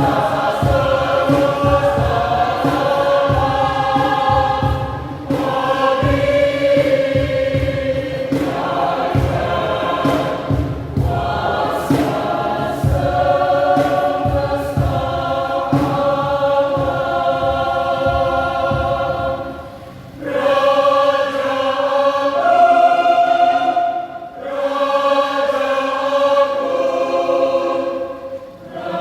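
A mixed church choir singing a hymn in several voice parts, with short breaks between phrases about two-thirds of the way through and again near the end. An irregular low rumble sits under the singing for the first two-thirds and then stops.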